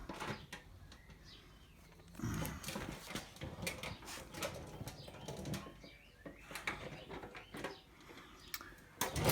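Rustling and scattered light clicks and knocks of close-up handling, with short bursts of low rustle, as the torch and camera are moved around the motorcycle's front brake.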